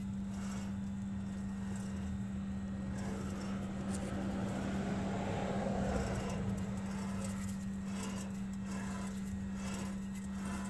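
Worn front wheel bearing hub assembly of a 2003 Dodge Ram 1500 turning as the rotor is spun by hand, giving a rough scraping rumble that swells to its loudest around the middle: the sign of a bad bearing, which should spin smooth and silent. A steady low hum runs underneath.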